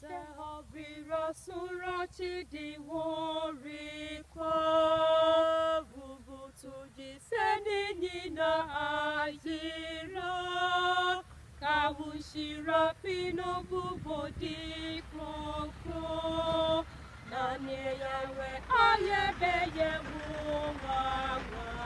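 Two women singing a hymn together without accompaniment, holding long notes.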